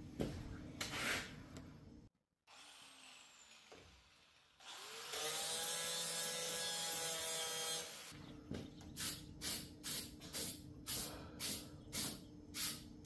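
Metal body work on a truck bed: a handheld power tool spins up with a rising whine and runs steadily for about three seconds, then cuts off. Rhythmic rubbing strokes at about two a second follow.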